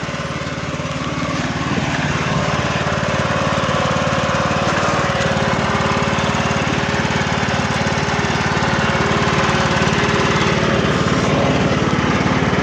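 Husqvarna riding lawn mower engine running steadily as the mower is driven, growing louder about two seconds in.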